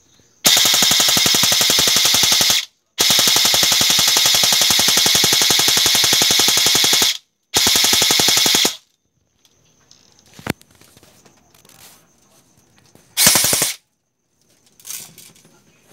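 M4-style airsoft rifle firing on full auto: three long bursts of rapid, evenly spaced shots, then a single shot and a short final burst.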